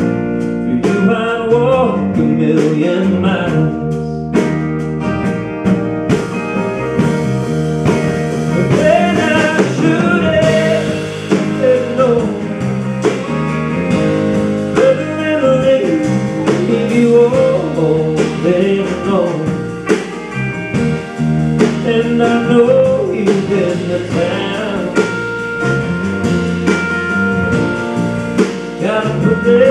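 Live four-piece band playing a blues-tinged rock and country song: electric guitar, acoustic guitar, electric bass and drum kit, amplified through stage speakers.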